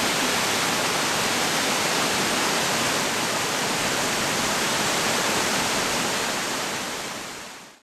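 Virginia Hawkins Falls, a waterfall spilling over a rock ledge and down rocky cascades, rushing steadily; the sound fades out near the end.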